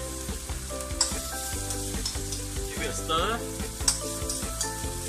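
Metal spatula stirring and scraping crispy dried radish, garlic and chili around a stainless steel wok, with the frying sizzle under it. Sharp clinks of the spatula against the pan about a second in and again near four seconds.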